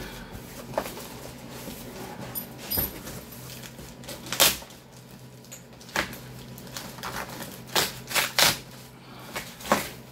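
A large cardboard shipping box being pulled and torn open by hand: an irregular run of short, sharp rustles, scrapes and rips of cardboard and packing tape, with a quick cluster of them near the end.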